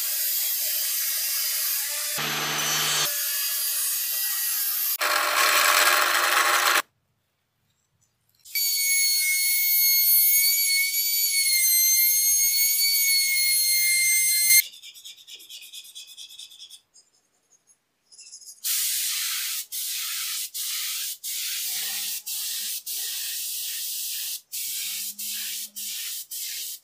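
A series of woodworking tool sounds with cuts between them. First a table saw cuts through a board. Then a router spins with a steady high whine. Then comes a run of short, evenly repeated rubbing strokes on wood.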